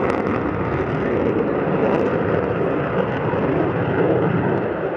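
A fighter jet flying a display overhead: a loud, steady jet-engine noise.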